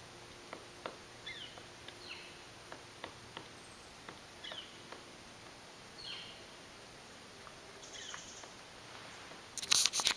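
Faint, irregular knocks of a pileated woodpecker pecking and tearing at a dead hemlock trunk, with short falling chirps of birds now and then. A brief louder burst of rustling noise comes near the end.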